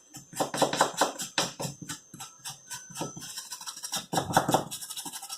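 Small brush scrubbing the inside of a dirty phone, quick repeated strokes several a second.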